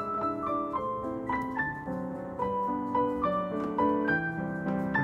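Background piano music: gentle notes and chords played at an even pace.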